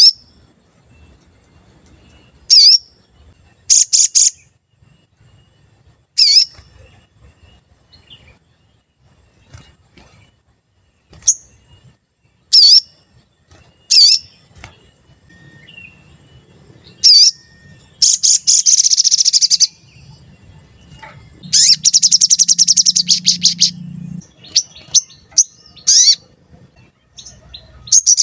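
A sogon songbird calling: separate sharp, high 'cuit' notes every second or two, then two long rapid chattering trills, with another trill starting near the end.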